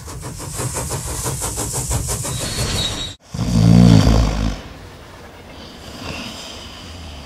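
Train running on rails with a fast, even clickety-clack clatter. After a sudden cut about three seconds in comes a loud, low pitched sound lasting about a second, followed by quieter train running.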